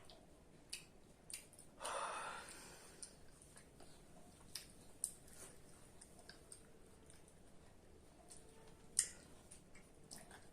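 A person yawning: one long breathy exhale about two seconds in, with small mouth clicks scattered around it and a single sharp click about nine seconds in.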